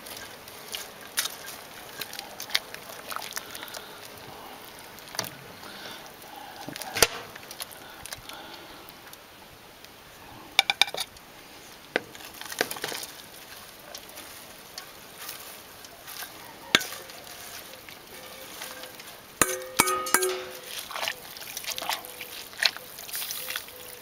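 A metal ladle clinking and scraping against a steel bowl and a stainless-steel stockpot as shredded cabbage and greens are pushed into the borscht and stirred in. Scattered sharp clinks, with a short metallic ring about twenty seconds in.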